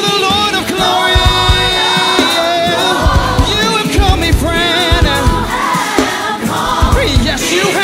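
Live gospel worship music: a choir and singers over a band, with sung lines and held notes over a steady low drum beat.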